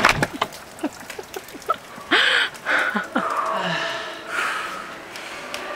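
A few clicks and knocks, then loud breathy gasps with short wordless vocal sounds, about two to three seconds in, from people lying on the floor. A softer breathy hiss follows.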